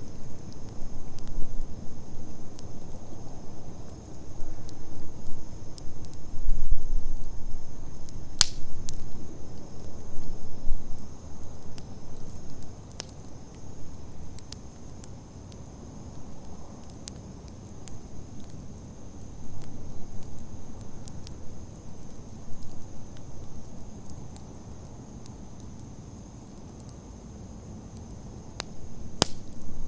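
Wood campfire burning, with scattered sharp crackles and pops, one loud pop about eight seconds in and a few more near the end, over a low rumble that swells and fades.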